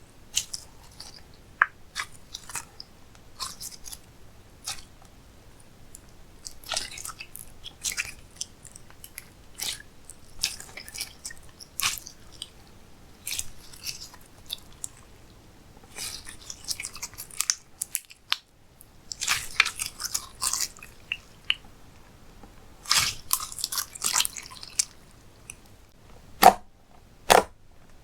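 Slime being squished and stretched by hand, making irregular sticky clicks and crackles, with a few sharper snaps near the end.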